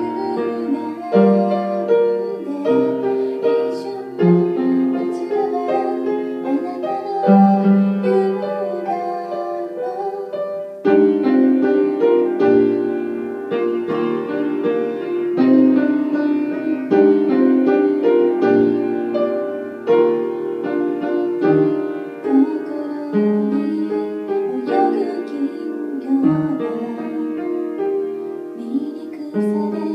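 Grand piano playing a slow pop-ballad accompaniment, with a woman singing along in places.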